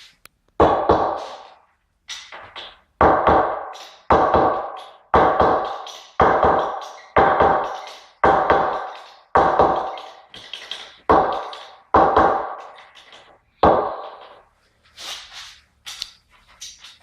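A series of hard knocks, about one a second, each ringing briefly before dying away.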